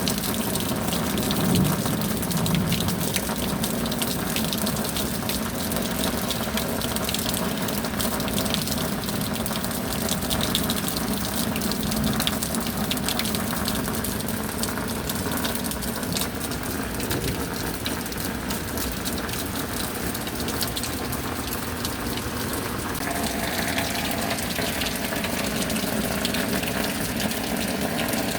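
Steady heavy rain: a dense, even wash of water with countless small drop hits. The tone shifts slightly about three-quarters of the way through.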